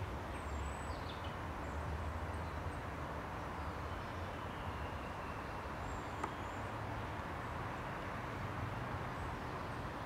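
Outdoor field ambience: a steady low rumble and hiss, with a few faint, high bird chirps now and then.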